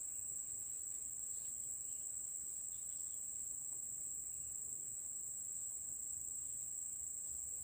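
Insects shrilling in a steady, high-pitched drone that does not break or change.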